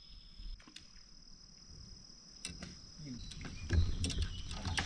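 Steady high-pitched buzzing of insects that fades over the first few seconds, with scattered light clicks and knocks. A louder low rumbling noise comes in near the end.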